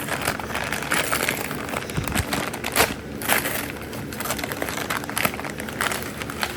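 Parcel packaging being opened by hand, crinkling and crackling in irregular rustles with a sharper crackle about three seconds in.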